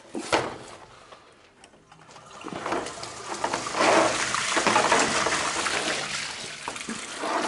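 A sharp knock on the pipework, then water rushing and gurgling through the sewer pipe for several seconds, building up and easing off toward the end.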